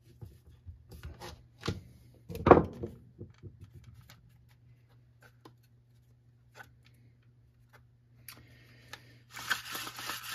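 Light clicks and knocks of a screwdriver and hard plastic parts being handled on a workbench, with one louder clatter about two and a half seconds in. A rough, scratchy rattling starts shortly before the end.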